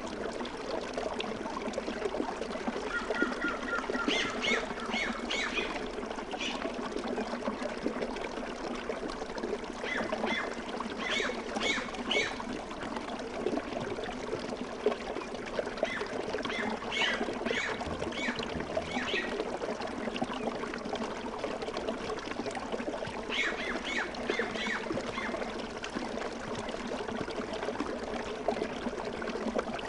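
Ambience of a stream flowing steadily, with birds calling in short bursts of quick repeated notes about every six seconds.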